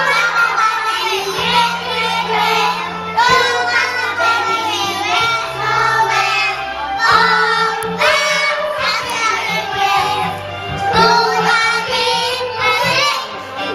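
A song: several voices singing over backing music with a bass line that changes notes every second or two.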